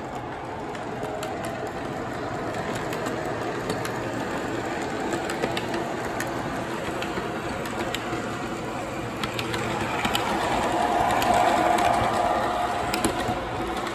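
MTH O-scale R62A subway model train running, with a steady rolling noise and scattered light clicks. A tone swells louder about ten seconds in and eases off near the end.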